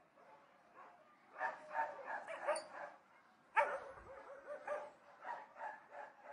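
Dogs barking at a distance in quick, irregular runs of barks. The loudest single bark comes about three and a half seconds in, followed by more barking.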